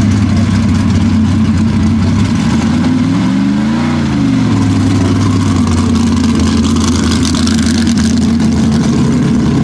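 A mega truck's engine running hard at high revs. Its pitch swells up and drops back about three to four seconds in, then holds steady.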